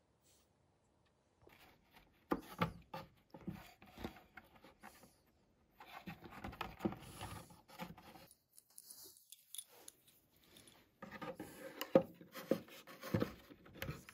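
Small wooden model-ship parts and tools being handled: irregular clicks, taps and scrapes in three bursts of about two seconds each, the sharpest tap near the end.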